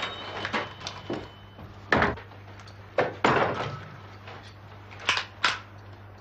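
A handful of sharp bangs, each with a short echo: one about two seconds in, another about a second later, and a quick pair near the end.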